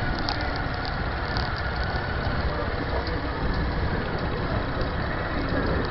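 Steady running noise of a moving motor vehicle on a street: engine and road noise with wind on the microphone.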